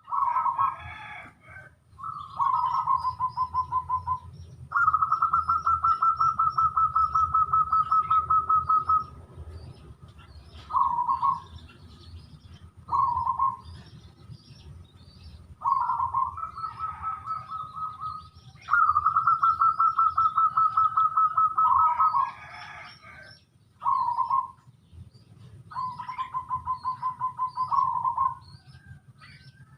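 Zebra dove (perkutut) cooing: repeated rolling coos made of rapid pulses, some short and some held for about four seconds. Short high chirps from smaller birds and a low steady rumble run underneath.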